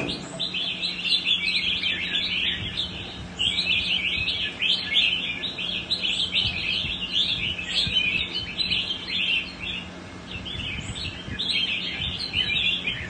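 Several caged songbirds singing at once: loud, fast, overlapping phrases of varied notes that run almost without a break, easing off briefly about ten seconds in.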